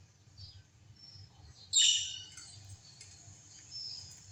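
Small birds chirping in short clusters of high calls, a clear one about two seconds in and another at the end, over a faint low hum.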